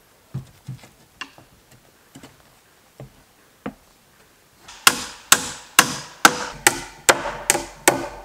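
Light knocks of boots on a wooden ladder's rungs during the climb, then eight sharp hammer blows, about two a second with a short ring, driving a nail into the cabin's timber frame.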